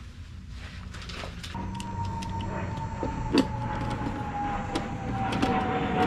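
An aircraft flying over: a rumble that grows louder, with a whine that slowly falls in pitch as it passes. A few light clicks and one sharp knock about three and a half seconds in.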